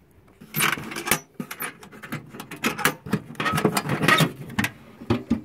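Old metal toolbox being opened and rummaged through: latches and lid clank and loose tools clatter, in two clusters of sharp rattles, a brief one about half a second in and a longer one from about two and a half seconds in.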